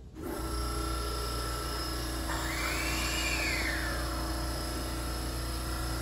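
Hankyu 1000-series electric train's air compressor starting up under the car: a steady hum with whining tones, and a whine that rises and falls about halfway through. This is the abnormal noise of a faulty compressor.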